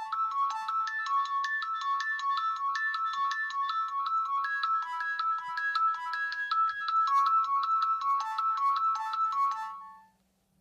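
A Nokia 3510 ringtone playing from a Nokia 7100 Supernova's loudspeaker: a quick melody of short, bright synthesized notes that fades out shortly before the end.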